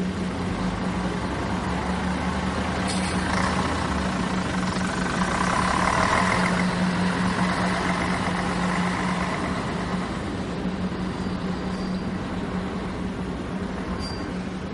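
A steady mechanical drone: a constant low hum under an even rushing noise. It swells slightly around six seconds in.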